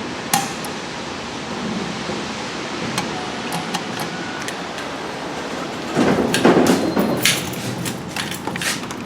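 Steady background hiss of a busy indoor lobby, with scattered sharp clicks. About six seconds in comes a louder burst of noise and clatter that lasts about a second.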